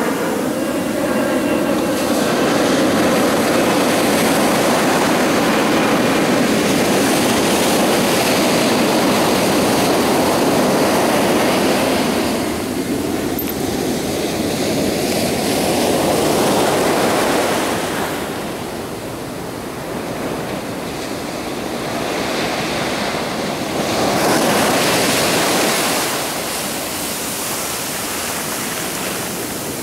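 Ocean waves washing in, a continuous rush of water that swells and ebbs: loudest over the first dozen seconds, surging again briefly after a lull, then fading before one more surge about three-quarters of the way through.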